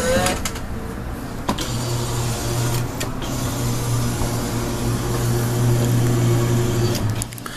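Claw machine's gantry motors whirring steadily as the claw is steered over the prizes, with a short break about a second in and a few light clicks.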